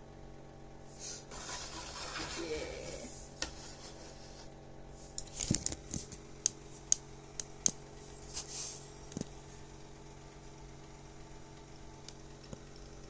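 Plastic action figures and clear plastic tube stands being handled and set on a tabletop: a rustling scrape about a second in, then a run of small sharp plastic clicks and taps in the middle.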